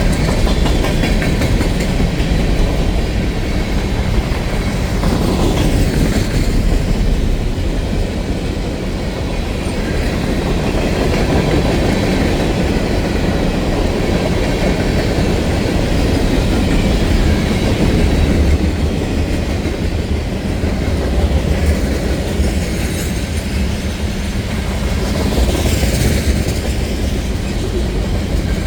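CSX freight train rolling past at close range: a steady heavy rumble of steel wheels on rail with clickety-clack over the rail joints, and thin wheel squeals now and then.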